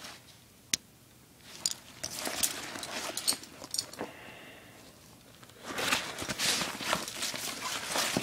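Nylon fabric of a military butt pack rustling as it is turned over in the hands, with a few sharp clicks from its metal strap buckle and fittings. The rustling comes in two spells, the louder one starting about six seconds in.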